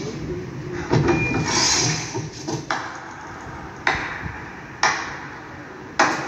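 Film soundtrack played in a cinema and picked up by a phone: five sharp impact hits roughly a second apart, each with a ringing tail, over a low background.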